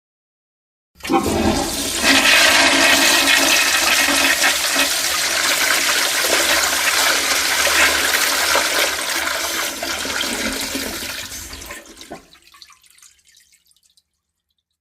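A sound effect of rushing water that starts suddenly about a second in, runs loud and steady for about ten seconds, then fades out.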